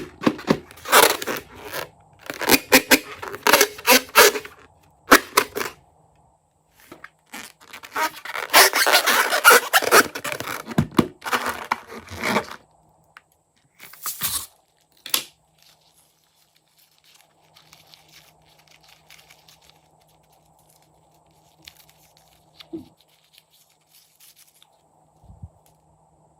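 Close-up handling noises from slime making: loud crackling, tearing bursts for about the first twelve seconds, then a few short bursts and faint scraping.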